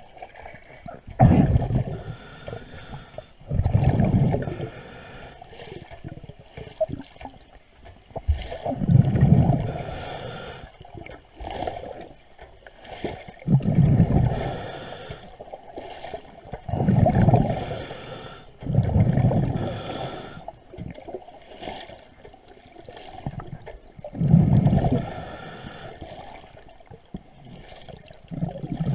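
Diver's exhaled breath bubbling out of a regulator underwater: about eight loud bubbly bursts, one every three to five seconds.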